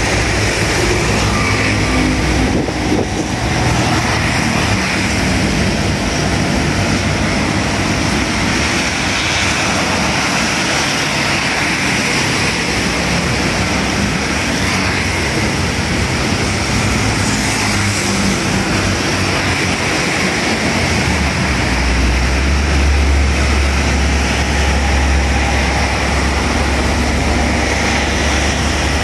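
Motorbike and truck traffic passing on a wet road in rain: a steady hiss of tyres on wet asphalt and rain under the engines of passing scooters. A heavy truck's low engine rumble comes in about two-thirds of the way through and is loudest near the end.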